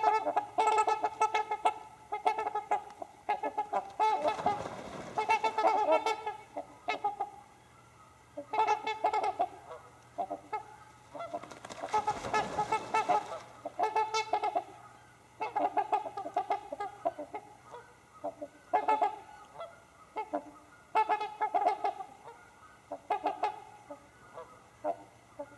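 Several trumpeter swans calling together in repeated bouts of honking, thinning out toward the end. Twice there is a rush of splashing and wing-flapping, about four and about twelve seconds in.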